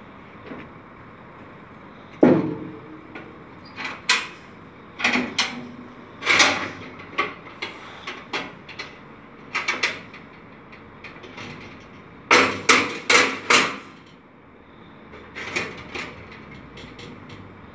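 A hammer striking the metal rear doors and door latches of a livestock trailer: irregular metal knocks and bangs, with a quick run of four blows about twelve seconds in.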